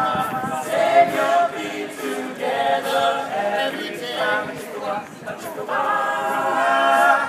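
All-male a cappella group singing in harmony with no instruments, settling on a held chord near the end.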